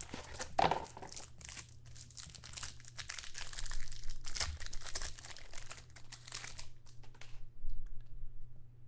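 Crinkling and rustling of wrapper and plastic as football trading cards are handled. It is dense for most of the time and thins to a few light clicks near the end.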